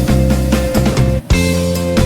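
Background music with guitar and a steady beat, breaking off briefly just after a second in.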